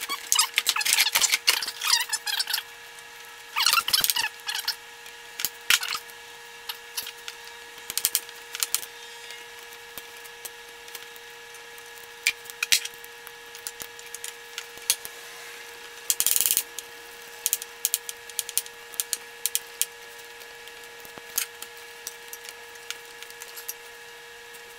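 Hand tools and a plastic air intake duct being handled in a car's engine bay: scattered clicks, knocks and rattles, busiest in the first couple of seconds, with a short loud rattle about sixteen seconds in. A faint steady hum runs underneath.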